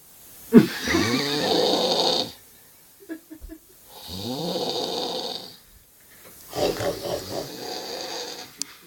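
A person snoring loudly: three long snores about three seconds apart, each opening with a rising tone.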